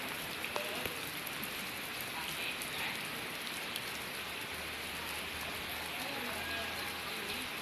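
Heavy rain pouring steadily, a constant hiss with scattered sharper drop ticks.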